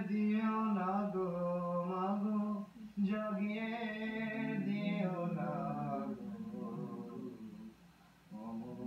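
A man singing unaccompanied in long, wavering held notes, with a short break about two and a half seconds in and a pause near the end.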